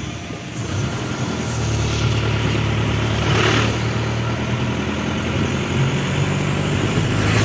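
Tata Sumo jeep's engine running with a steady low hum, heard from inside the cabin, with a brief rush of noise about halfway through.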